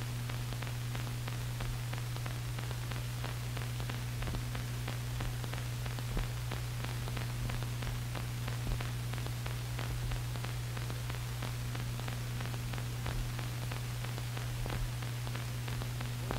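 Steady low hum with hiss and a scatter of faint crackling clicks: the background noise of an old film soundtrack, with no other sound standing out.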